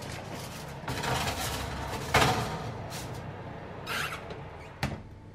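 A foil-covered baking tray is slid onto a metal oven rack, with a scraping clatter that peaks a little after two seconds, then the oven door is swung up and shuts with a sharp click near the end. A low steady hum runs underneath.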